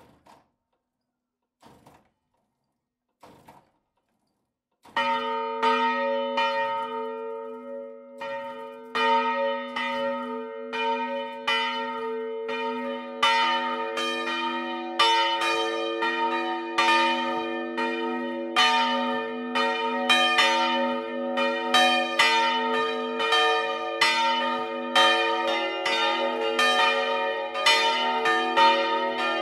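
A ring of church bells swinging into a full peal. After a few faint knocks, the lowest bell starts striking about five seconds in. A second, higher bell joins around thirteen seconds in and a third near the end, their strokes overlapping and the tones ringing on between them.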